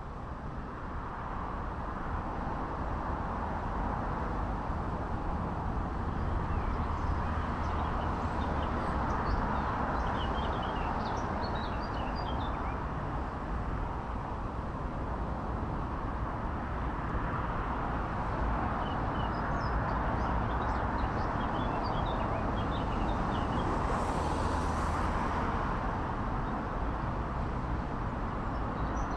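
Steady outdoor rumble and hiss with scattered short bird chirps over it.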